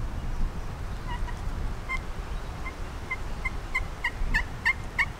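A turkey yelping in a series of short notes, about three a second, starting about a second in and growing louder toward the end.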